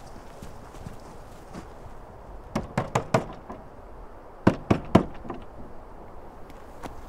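Knuckles knocking on an old wooden door: four quick knocks, a pause of over a second, then three more, louder knocks.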